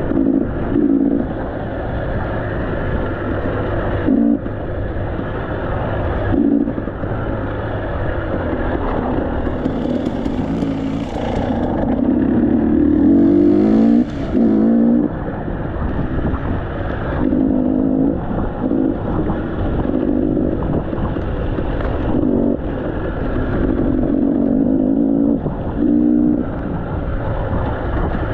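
KTM 300 two-stroke enduro motorcycle engine revving up and down in repeated bursts of throttle, with brief cut-offs every few seconds.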